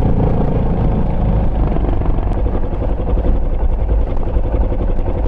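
Yamaha Serow single-cylinder dual-sport motorcycle being ridden, its engine running steadily under heavy wind noise on the microphone.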